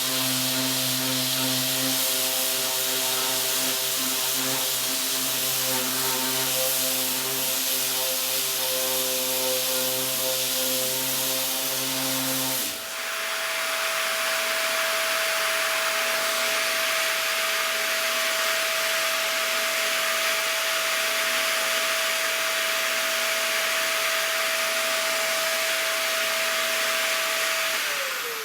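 Electric sander with 60-grit paper running on a wooden pinball playfield, together with a vacuum. About halfway through the sander stops abruptly, leaving the vacuum running alone with a steady whine and hiss. Near the end the vacuum shuts off, its whine falling as it spins down.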